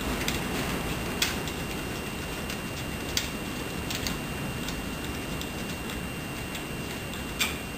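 Hand ratchet clicking in light, uneven ticks as screws are undone, with a few sharper clicks about a second in, about three seconds in, and near the end.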